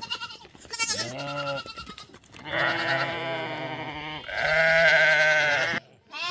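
Livestock bleating: a short bleat about a second in, then two long, quavering bleats back to back, each well over a second, the last one loudest.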